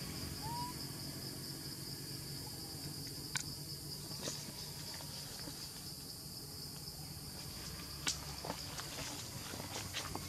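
Forest insects keeping up a steady high-pitched drone, with a short chirp just after the start and a few sharp snaps about three, four and eight seconds in. Near the end, dry leaves crackle in quick, uneven clicks.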